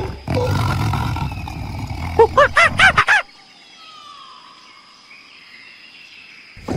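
A tiger's low, rumbling growl, then a quick run of about six shrill rising-and-falling monkey calls about two seconds in, which cut off abruptly. A much quieter stretch with faint background follows, and loud calls start again right at the end.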